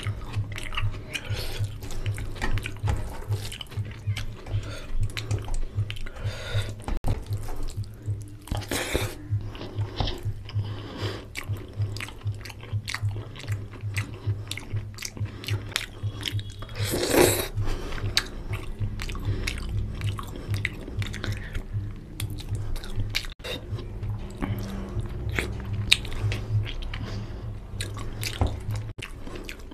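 Close-miked chewing and lip-smacking of a person eating rice and chicken curry by hand, many short wet clicks and smacks in a continuous run, with one louder noise about halfway through and a steady low hum underneath.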